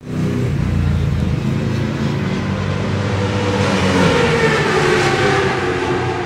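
Norton Manx single-cylinder racing engine running loud through its open megaphone exhaust, revved up to a peak about four seconds in and then easing back down.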